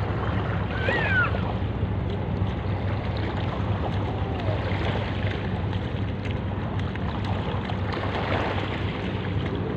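Sea water lapping and wind on the microphone over a steady low hum, with a brief distant voice about a second in.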